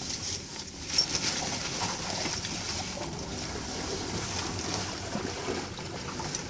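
Steady wind and lapping water around a boat, with one sharp click about a second in.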